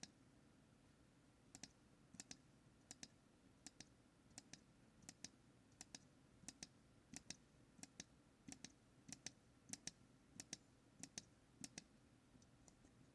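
Small tactile push button on an MSP430 microcontroller board being pressed and released over and over, each press a faint double click, about one press every two-thirds of a second. The clicks start about a second and a half in and stop near the end.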